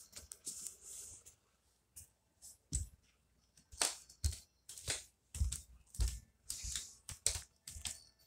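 Handling noise from a phone being carried about: irregular rustling, scraping and clicks against fabric and hands, with a few dull thumps.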